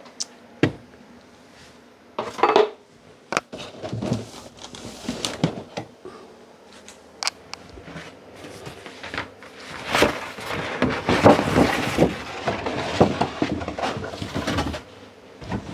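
Paper and cardboard being handled on a kitchen counter: scattered knocks and clicks, then from about ten seconds in a denser, louder stretch of rustling and knocking as a large flat sheet of cardboard is picked up and moved.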